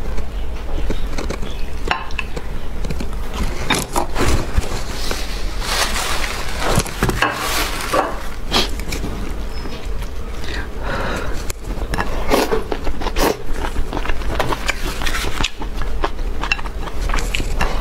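Close-up eating sounds: irregular bites and chewing of braised pork belly and rice, with utensils scraping and clinking against a bowl, over a low steady hum.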